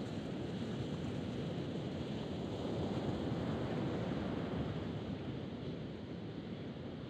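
Wind buffeting the microphone over the steady wash of ocean surf, swelling slightly in the middle.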